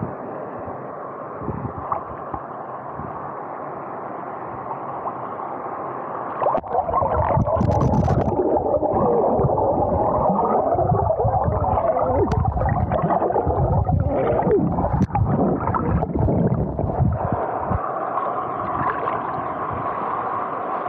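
Water gurgling and sloshing around a small action camera at or under the surface during a wild swim, muffled. About six seconds in it turns louder and churning, with irregular splashing pulses, and it settles back to a steadier wash near the end.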